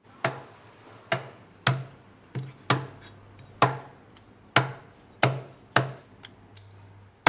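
A heavy knife chopping through a coral grouper's head and bones on a chopping board, about nine hard chops at uneven spacing, roughly one a second.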